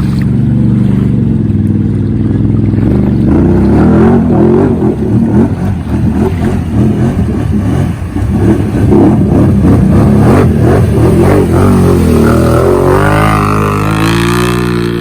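Can-Am Outlander XMR 850 ATV's V-twin engine, fitted with a Looney Tune slip-on exhaust, revving hard and unevenly under load. Near the end the pitch climbs steadily as it accelerates.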